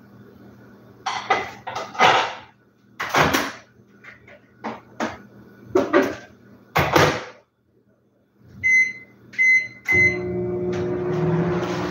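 Microwave oven being started: several clunks and knocks of handling, three keypad beeps, then the oven running with a steady hum.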